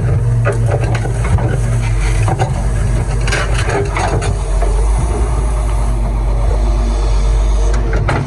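Excavator's diesel engine running steadily under load, with scattered knocks and clatter from the digging, thickest in the first half.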